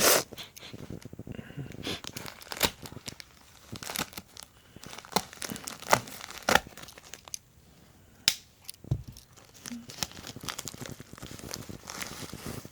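A product package being cut open with a knife and torn apart by hand: irregular tearing and crinkling of packaging, broken by many sharp clicks and snaps, the loudest at the very start.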